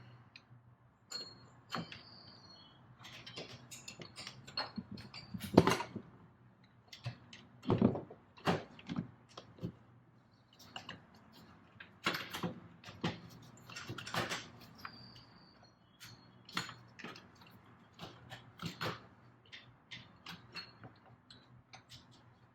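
Scattered clinks, knocks and rattles of metal parts and hand tools being handled during turbocharger installation work, with a few short high metallic rings. The loudest knocks come about five and a half and eight seconds in.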